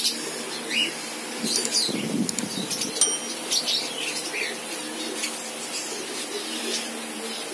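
Aviary birds chirping in short calls and brief upward notes, with fluttering wings and a few sharp clicks.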